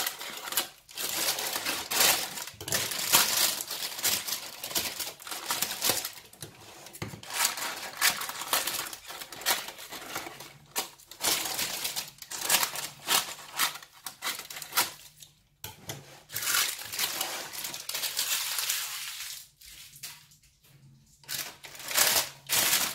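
Silicone-coated baking parchment rustling and crinkling as its edges are snipped with scissors and the paper is pressed into a cake tin. The rustles come in irregular bursts, with short quiet pauses, the longest near the end.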